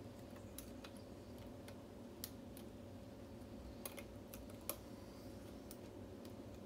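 Scattered light clicks and ticks, a few times a second and unevenly spaced, as a hook pick works the pins of a Schlage SC4-keyway pin-tumbler lock under tension. A faint steady hum runs underneath.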